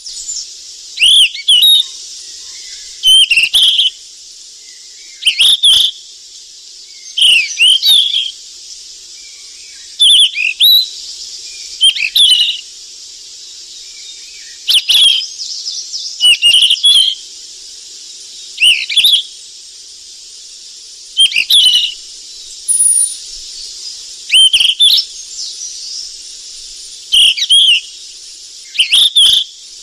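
Sikatan emas (golden flycatcher) calling: short, loud phrases of two or three quick whistled notes, repeated about every two seconds over a steady high hiss.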